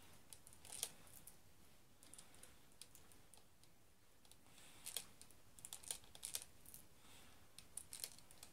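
Faint, irregular small plastic clicks as airsoft BBs are pushed one at a time by hand into a spring-powered L85A1 airsoft rifle's magazine.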